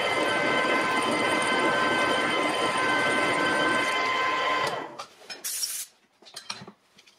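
Metal lathe running with a steady mechanical whine while a twist drill in the tailstock bores the centre hole in bar stock spinning in the three-jaw chuck. The lathe is switched off about four and a half seconds in and the sound cuts away, leaving a few light knocks and a short hiss.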